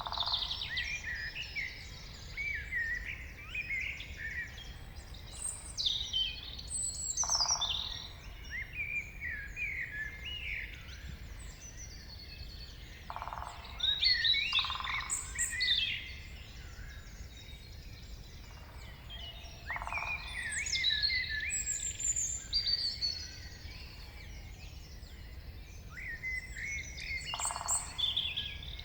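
Morning forest bird chorus: many songbirds singing and calling over one another, with a steady low rumble underneath.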